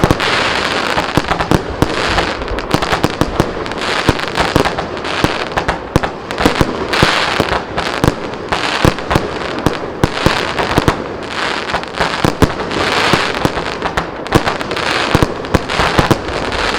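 A 76-shot standard aerial finale set (consumer fireworks cake) firing in a rapid, sustained barrage: many sharp bangs from the aerial breaks, over a rushing hiss that swells and fades in waves every couple of seconds.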